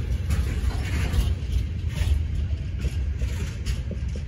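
Freight train wagons rolling past close by: a steady low rumble with repeated clacks as wheelsets pass over the rail joints.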